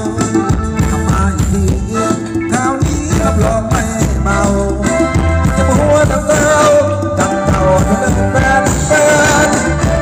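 Live band music for Thai ramwong (Phetchaburi circle) dancing, with a steady beat and a wavering melody line.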